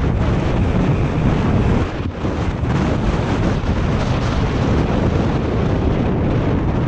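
Wind rushing over the microphone, mixed with the rumble of mountain-bike tyres rolling over a loose dirt and gravel track. The noise is loud and steady.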